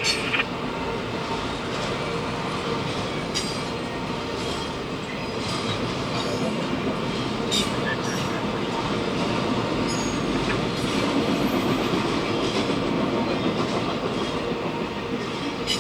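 Freight train cars rolling steadily past, wheels clicking over rail joints, with a few faint brief wheel squeals.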